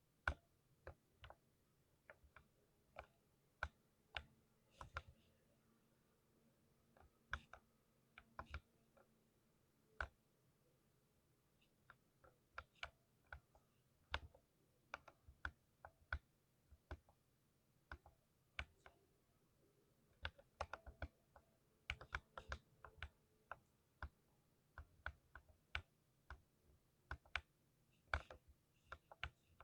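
Typing on a lubed 60% mechanical keyboard: irregular single keystrokes, breaking into quicker runs of keypresses past the middle.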